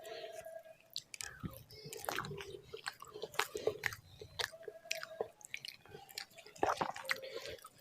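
Close-miked chewing of a mouthful of rice with aloo bharta (mashed potato), with irregular wet smacks and clicks of the mouth several times a second.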